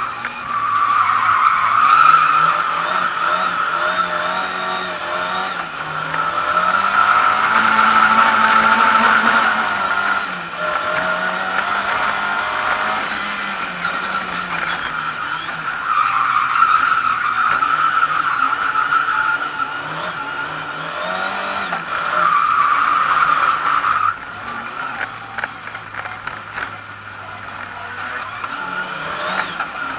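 Lada 2101 rally car's four-cylinder engine heard from inside the cabin, revving up and down as it is driven hard, with a high tyre squeal swelling in several stretches of a few seconds. Near the end the engine settles to a lower, steadier note.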